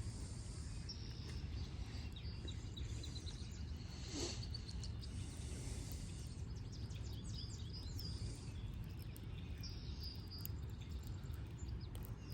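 Small birds chirping now and then over a steady low rumble of outdoor ambience, with one brief louder sound about four seconds in.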